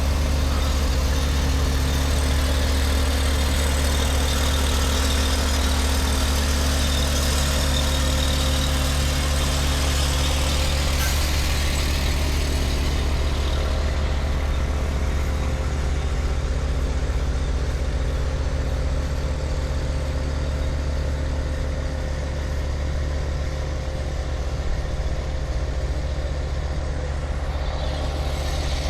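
Heavy diesel engine running steadily at a constant speed, with a strong low drone.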